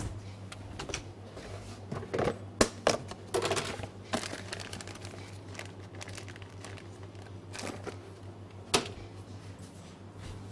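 Irregular clicks, taps and knocks of objects being handled in a kitchen, the loudest about two and a half seconds in and near nine seconds in, over a steady low hum.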